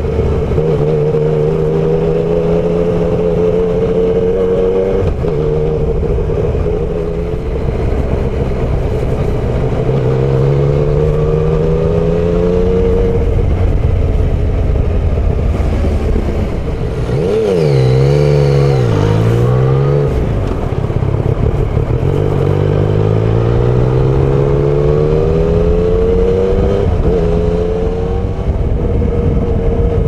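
Yamaha MT-09 Tracer's inline three-cylinder engine accelerating through the gears while riding: its pitch climbs several times and drops back at each upshift, and for a few seconds past the middle it swings up and down. Wind and road noise run under it, picked up by a microphone in the rider's jacket side pocket.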